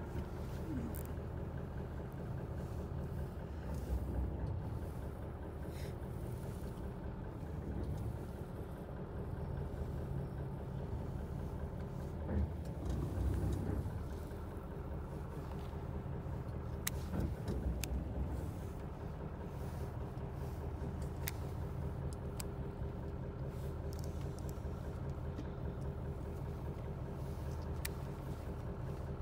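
Fishing boat's engine running steadily, a low even drone, with a few sharp clicks over it.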